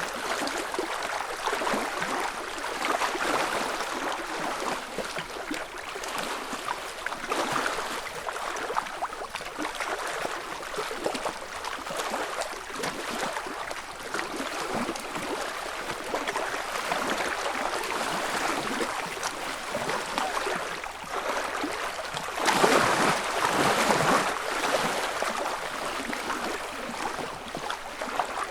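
Small ripples lapping and splashing against a lakeshore, a soft uneven wash of little waves, with a somewhat louder lap a little after three-quarters of the way through.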